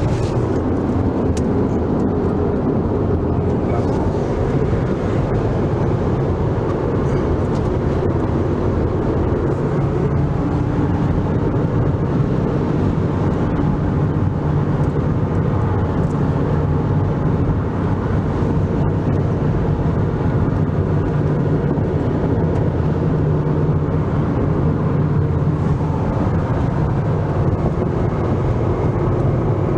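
Steady road, tyre and engine noise heard from inside the cabin of a car driving along.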